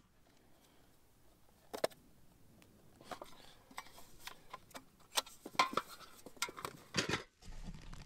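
Small hard clicks and rattles of camera gear being handled, as filters and their holder are taken out and fitted. There is a single sharp click about two seconds in, then a busy run of clicks from about three to seven seconds.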